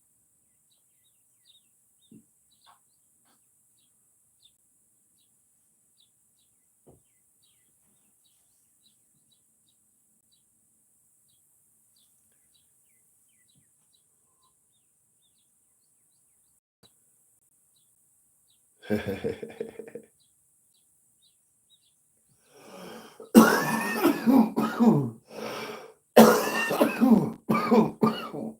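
A person coughing: a short bout about two-thirds of the way in, then a hard fit of several coughs near the end.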